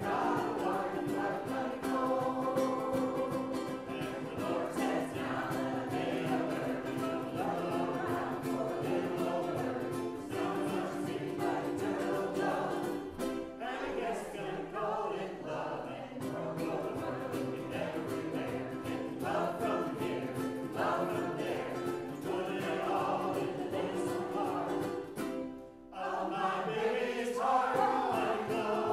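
Mixed church choir of men and women singing, the voices holding chords in phrases; a short break near the end before the singing comes back in.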